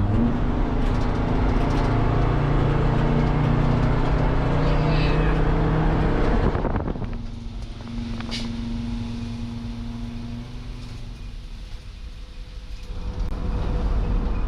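Engine and road noise of a 2006 Sprinter van heard from inside the cab while driving at highway speed. About six and a half seconds in it drops sharply quieter, then builds back up near the end.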